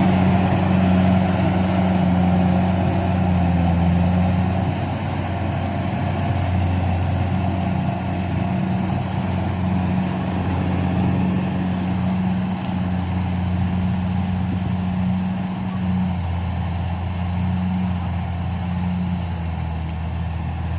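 Rice combine harvester's engine running steadily, a low even drone that drops a little in level about five seconds in.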